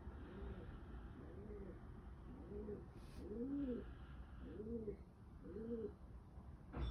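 Pigeon cooing: a series of about seven low, arching coos, each rising and falling, roughly one a second and loudest in the middle. A single sharp click comes near the end.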